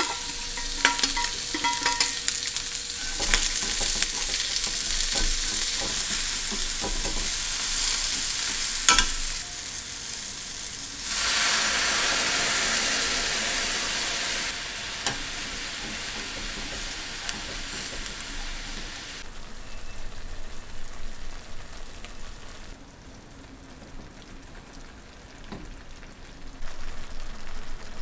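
Sliced onions sizzling in a hot frying pan, with scattered clicks in the first ten seconds or so. The sizzle is loudest from about eleven to fourteen seconds in, then settles to a quieter sizzle as the onions and beef simmer in broth.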